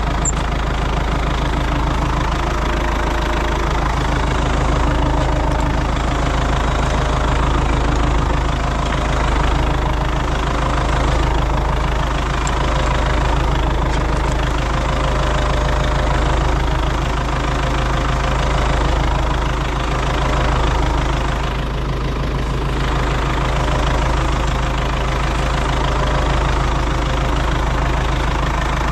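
An engine running steadily at idle with no revving; its low, even drone continues unbroken, dipping slightly for a moment near the end.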